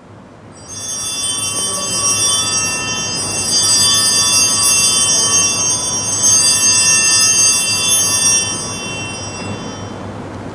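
Altar bells ringing at the elevation of the host, marking the consecration of the bread. The ringing starts about a second in, grows louder through the middle and dies away near the end.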